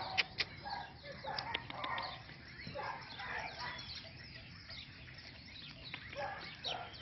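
Small birds chirping throughout, with a couple of sharp clicks in the first half second.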